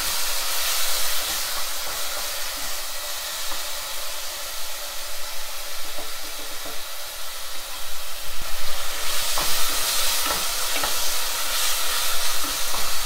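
Sliced onions, tomato and green chillies sizzling as they fry in a nonstick pot, stirred with a wooden spatula that scrapes and clicks against the pan now and then. The sizzle grows a little louder about two-thirds of the way through.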